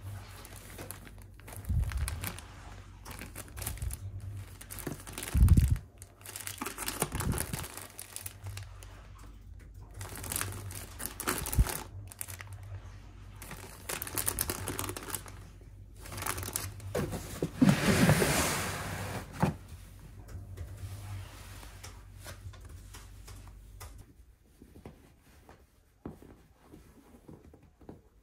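Plastic packs of wet wipes and cleaning cloths crinkling and rustling as they are handled and pulled out of a fabric storage case, with a few soft knocks. A longer, louder rustle comes about two-thirds of the way through.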